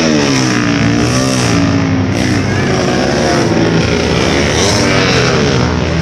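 Racing motorcycle engine being revved while it warms up, its pitch repeatedly rising and falling.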